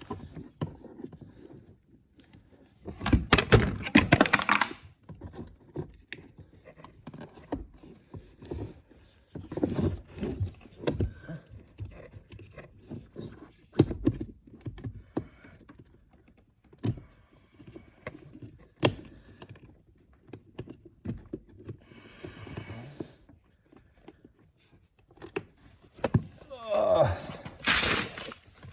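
Hands working a new cabin air filter into its plastic housing: scattered knocks and clicks of plastic, with two louder stretches of rustling and scraping, one about three seconds in and one near the end.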